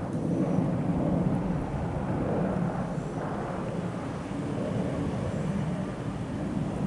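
Low, steady rumble of a Boeing 737-800 jet airliner's CFM56 turbofans cruising at high altitude far overhead, wavering slightly in level.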